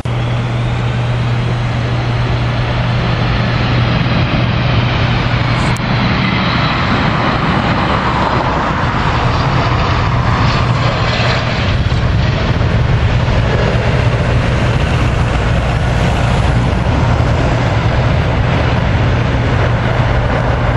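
Four jet engines of a Boeing 747 freighter landing: a loud, steady rush with a falling whine over the first few seconds, growing a little louder after a few seconds as it touches down and rolls out.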